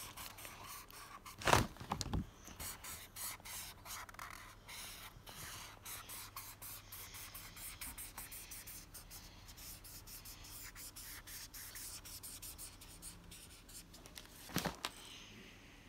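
Felt-tip marker rubbing across paper in many quick, short colouring strokes. A couple of louder knocks come about one and a half to two seconds in, and another near the end.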